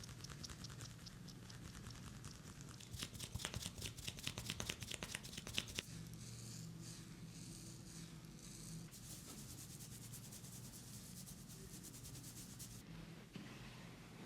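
Fingers rubbing and scratching through hair and over the scalp in a head massage. A quick run of rapid scratching strokes comes a few seconds in, then steadier rubbing that stops suddenly near the end.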